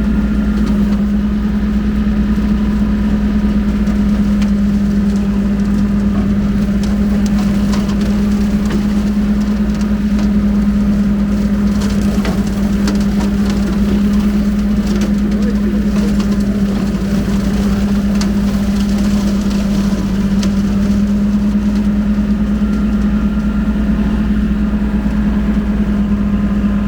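Kubota L2501 compact tractor's three-cylinder diesel running steadily under load, driving a rotary brush mower, with scattered crackling of brush being cut in the mower.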